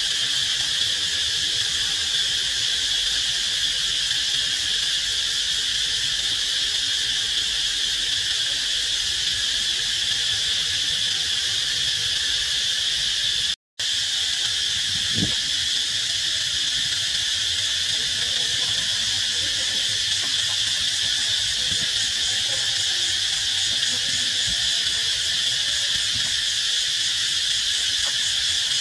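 Chorus of insects making a steady, high-pitched drone, unbroken except for an instant's dropout about halfway through.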